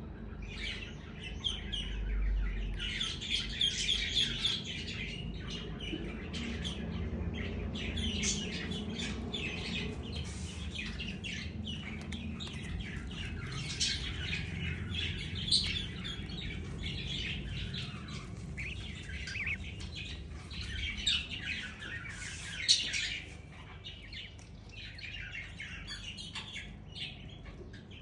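Baby budgerigars chirping and chattering in rapid high calls, almost without pause, quieter in the last few seconds. A low steady hum runs underneath.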